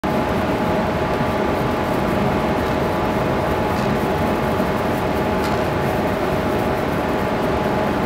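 Steady machinery hum with a few held tones, typical of a ship's engines and ventilation running.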